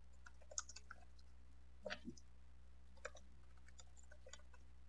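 Faint computer keyboard keystrokes, a few scattered clicks in small clusters, over a steady low hum.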